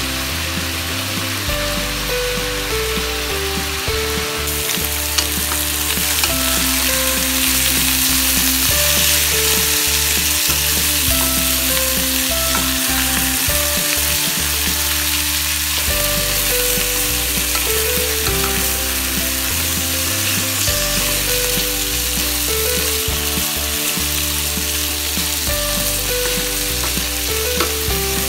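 Cubes of pork belly sizzling as they fry in a nonstick pan, stirred and scraped now and then with a wooden spatula; the sizzle grows louder about four seconds in. Light background music plays underneath.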